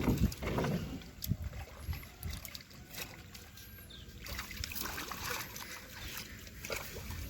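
Water sloshing and splashing against a small boat on a river, with scattered light knocks and drips, as a fishing net is worked.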